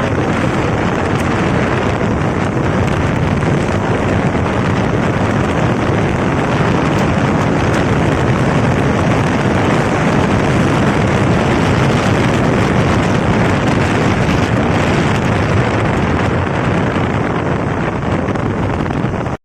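Loud, steady wind noise buffeting the microphone of a KTM Duke 200 motorcycle at riding speed, the engine and road noise buried underneath; this is the noise problem that the makeshift mic setup was meant to cure. It cuts off suddenly at the very end.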